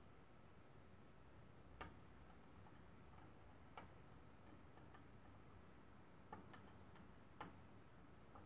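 Near silence with about half a dozen faint, irregular ticks: multimeter probe tips tapping and scraping on the metal terminals of an alternator rectifier as contact is sought.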